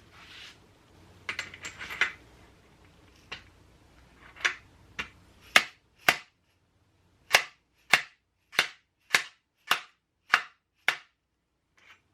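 Hammer blows on a star-nut setting tool, driving a star nut down into a bicycle fork's steerer tube: a series of about a dozen sharp metallic strikes, roughly two a second, through the second half, after a few seconds of light handling clatter.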